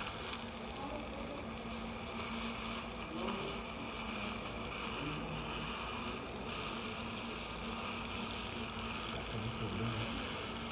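Surgical suction aspirator running with a steady hiss and low hum as its metal tip draws saline irrigation out of the tooth socket while it is flushed after the distomolar extraction.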